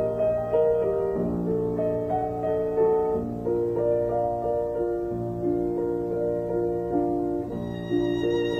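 Slow, gentle instrumental background music with held keyboard-like chords that change about once a second. Near the end a higher melody with vibrato comes in.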